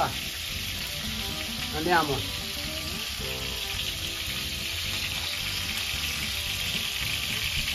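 Shell-on shrimp sizzling steadily in hot olive oil in a stainless steel skillet.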